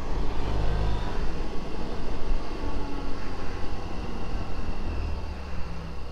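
2008 Suzuki Burgman 650 maxi-scooter's 638 cc parallel-twin engine running on the move, mixed with steady wind noise.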